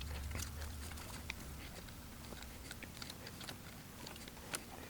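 Faint, irregular small clicks and scrapes of hand work: a nut being fitted by hand to hold a timer switch's cover plate in place.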